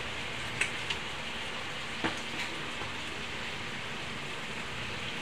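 Marinated pork belly sizzling on a flat griddle pan over a gas burner: a steady hiss with a few sharp pops in the first two seconds.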